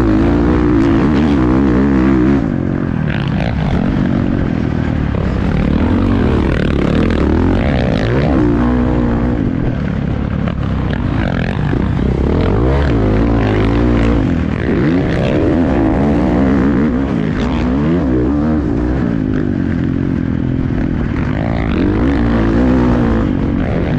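2023 Husqvarna FC450 motocross bike's 450cc single-cylinder four-stroke engine, heard from the rider's helmet, revving hard and backing off again and again as it accelerates out of turns and through the gears.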